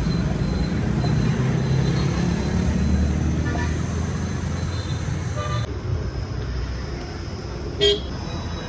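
Street traffic: the steady rumble of passing road vehicles' engines, with a brief horn beep near the end.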